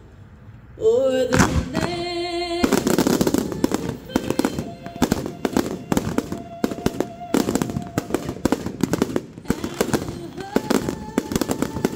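Fireworks going off over music. A loud start comes about a second in, then from about three seconds on there is dense, rapid crackling of many sharp reports.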